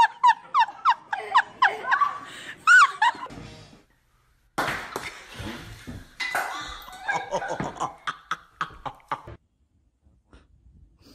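Shrill, rapid laughter and shrieks from a few people, cut off after about three and a half seconds. After a short gap comes a burst of noise, then more laughing voices.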